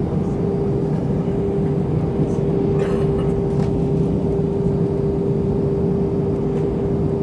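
Cabin noise inside an Airbus A319-112 in flight: the steady rush and low rumble of airflow and its CFM56 turbofan engines, with a steady hum running through it. A faint brief click about three seconds in.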